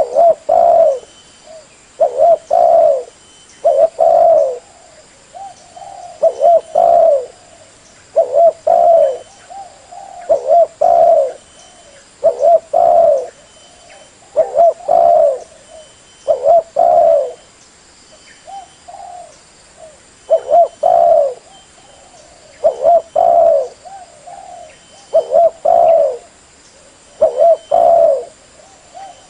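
Spotted dove (derkuku) cooing over and over: short phrases of soft, low rounded coo notes, one phrase about every two seconds.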